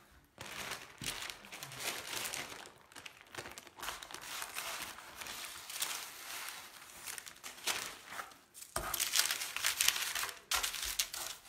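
Baking parchment crinkling and rustling as a paper-wrapped meatloaf is handled and laid into a baking tray, louder near the end.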